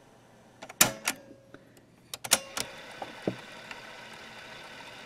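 Panasonic RQ-309S cassette recorder's piano-key transport controls clunking several times, then its motor and tape transport running with a steady whir as the freshly recorded test tape is rewound for playback.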